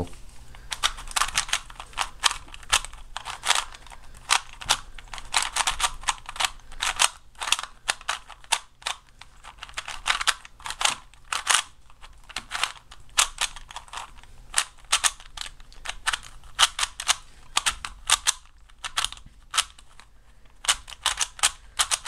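A new Hasbro "faster action" Rubik's Cube 3x3 being turned by hand for the first time: its plastic layers clack in rapid, irregular runs of clicks as algorithms are done on it.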